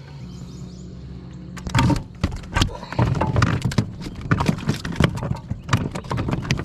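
A freshly landed largemouth bass flopping and thrashing in the kayak, a rapid irregular run of knocks and slaps that starts about two seconds in.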